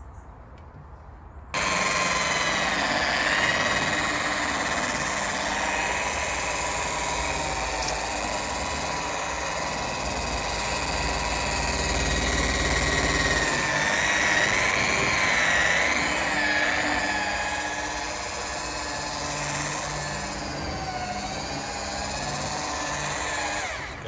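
Electric rotary polisher running, its motor whine wavering in pitch as the pad is worked over cutting compound on a tractor's plastic bonnet. It starts suddenly about a second and a half in.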